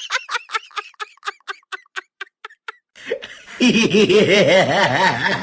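Laughter sound effects: a rapid run of short laughs that slows and fades over about three seconds, then, after a brief gap, a louder, fuller burst of laughter with a wavering pitch.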